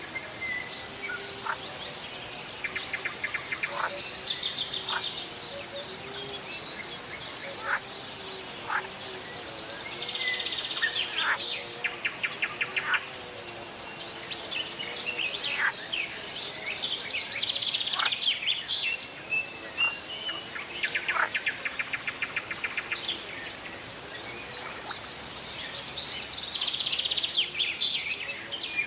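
Several birds singing and calling, with rapid buzzy trills recurring every few seconds and many short sharp chirps, over a faint wavering lower tone.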